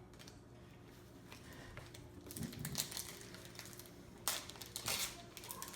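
Pokémon trading cards and their foil booster-pack wrappers being handled: soft rustling, then a few sharp crinkles and taps, the loudest near the end.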